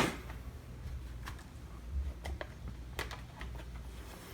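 Scattered light clicks and taps as the cover of a wall-mounted Rain Bird sprinkler timer is popped off and handled, over a faint low hum.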